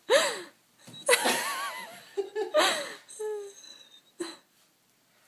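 Laughter in several bursts, with a wavering high-pitched stretch about a second in, dying away after about four seconds.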